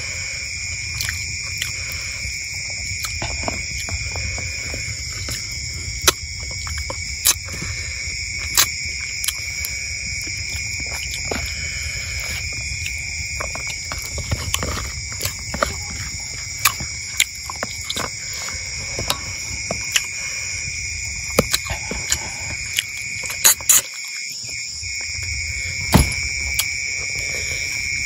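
Night insects trilling in a steady chorus on several high pitches, with scattered sharp clicks and crackles over it.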